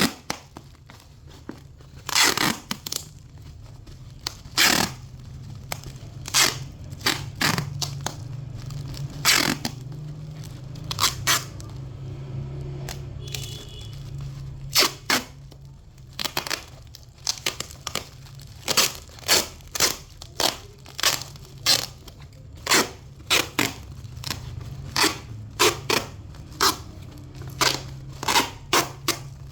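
A parcel being packed: plastic wrapping and packing tape crinkle and tear in many short, irregular strokes, over a steady low hum.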